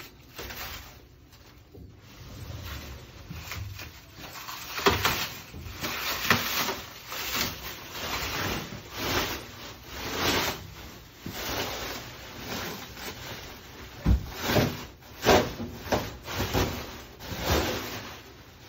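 Clear plastic shrink-wrap film being peeled and pulled off mirrored sliding closet doors, crackling and rustling unevenly, with the sharpest crackles over the last five seconds. A dull knock sounds about fourteen seconds in.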